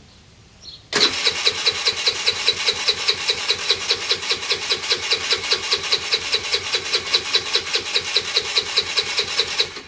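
A scooter's electric starter cranking the engine in one long, rhythmic run of about six beats a second, starting and stopping abruptly, with the engine turning over but not firing.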